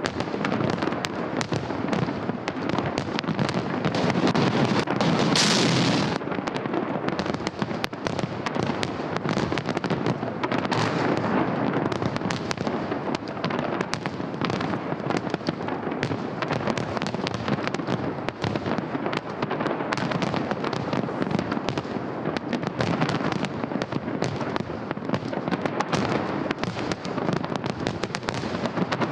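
Fireworks salute: a dense, continuous crackle of many small bursts, with a louder hissing whoosh about five seconds in.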